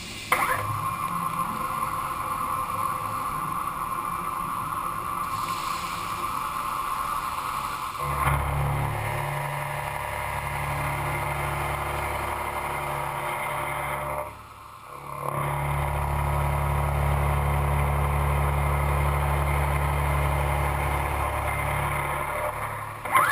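Horizontal CNC machining center running as it machines a truck crankcase: a steady mechanical hum and cutting noise that shifts abruptly about eight seconds in and dips briefly around fifteen seconds in, where the shots change.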